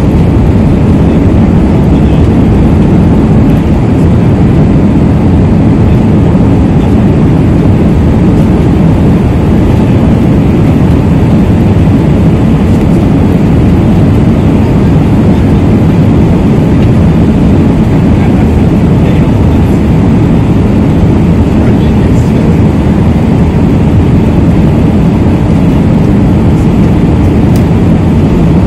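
Steady loud noise of a jet airliner's engines and rushing air, heard from inside the cabin during the climb after takeoff.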